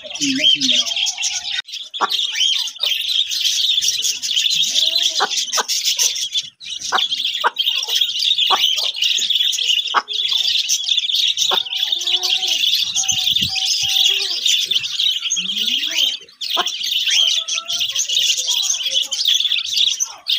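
Many small birds chirping in a dense, continuous high chorus, with occasional lower calls and a few sharp clicks underneath.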